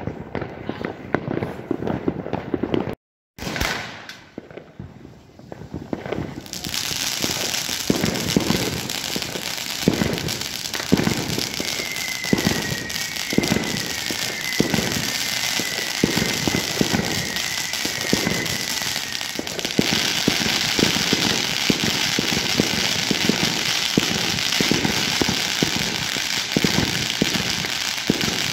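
Fireworks going off close by, sparse cracks at first with a brief dropout about three seconds in, then a dense, continuous crackle of rapid bangs. A run of short, repeated whistles sounds above the crackle midway.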